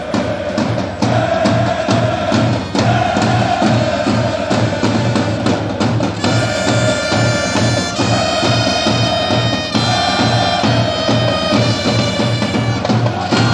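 Supporters' bass drum pounding a steady beat about twice a second under crowd chanting, with a wind instrument playing three long held notes from about six seconds in.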